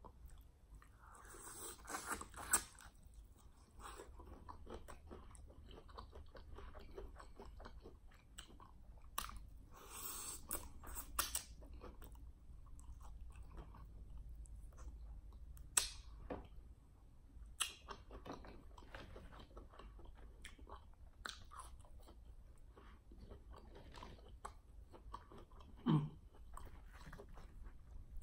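Close-miked chewing of crispy fried chicken wings: crunchy bites of the fried skin and wet, smacking mouth sounds, with a few sharper crunches scattered through.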